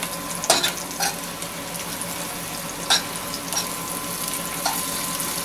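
Cornmeal-coated smelt frying in hot oil in a stainless steel pan: a steady sizzle, with a few sharp clicks as a utensil turns the fish against the pan.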